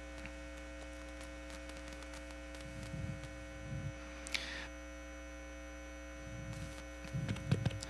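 Steady electrical mains hum on the microphone and sound-system feed, with a few faint, brief noises in the room.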